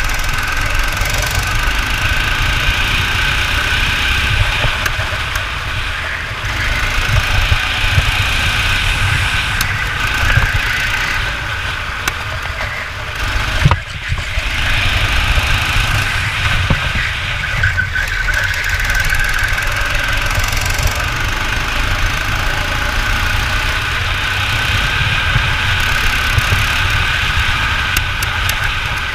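Go-kart engine running hard under racing throttle, heard from on board. The steady engine note eases briefly about halfway through, with one sharp knock, then picks back up.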